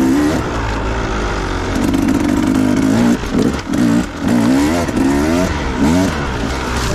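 Husqvarna enduro dirt bike engine running under load on a trail ride, the revs rising and falling over and over with the throttle, most quickly between about three and six and a half seconds in.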